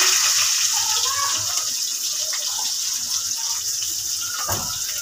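Steady sizzling hiss of sliced onion frying in oil in a cooking pot, with a single knock about four and a half seconds in.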